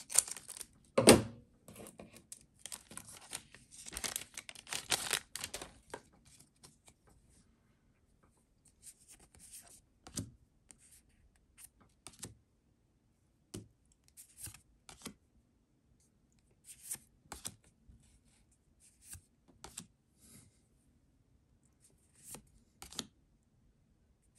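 Booster pack wrapper tearing and crinkling open for the first few seconds, with a louder thump about a second in, then scattered short rustles and clicks of trading cards being slid and flipped.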